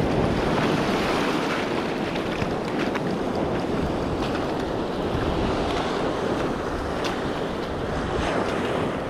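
Small waves breaking and washing through shallow seaweed-covered rocks, with wind buffeting the microphone; a steady rush of surf with no let-up.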